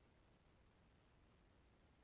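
Near silence: faint steady hiss of an empty sound track.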